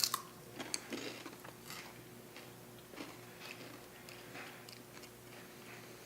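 Crisp rice crackers wrapped in seaweed (nori maki arare) being bitten and chewed: a sharp crunch right at the start, a run of crackly crunches over the next second or two, then softer chewing.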